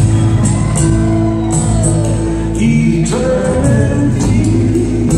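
Live band playing a slow song: guitar, upright double bass and drum kit, with steady bass notes, a sliding melodic line and regular cymbal strokes.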